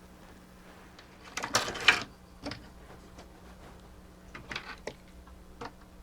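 Small parts of a toy mechanism being handled and shifted: a quick cluster of clicks and scraping about a second and a half in, then a few lighter separate clicks.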